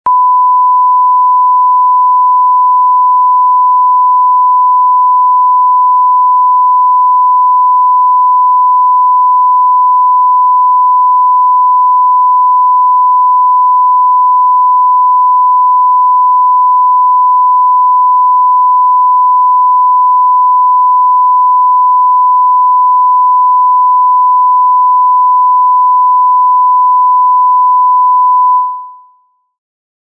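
Censorship bleep: a single steady pure tone, unbroken for nearly half a minute and fading out near the end.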